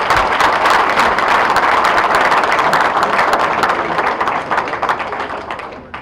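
Audience applauding, many people clapping at once; it holds steady, then dies away near the end.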